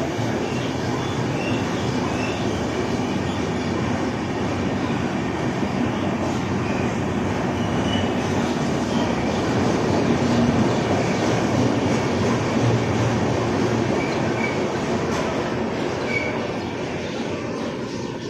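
LHB passenger coaches of an express train rolling past on the rails: a steady, fairly loud rumble of wheels on track with brief, faint high wheel squeals now and then. The noise eases off near the end as the last coach goes by.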